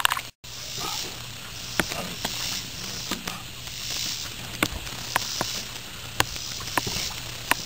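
Irregular sharp clicks and taps, around nine over several seconds, from a cast net being handled on a wooden dock. A low steady hum and a faint hiss lie underneath.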